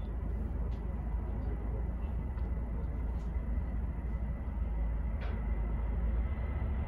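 Steady low rumble of airport background noise, with a faint thin high tone and a few light ticks.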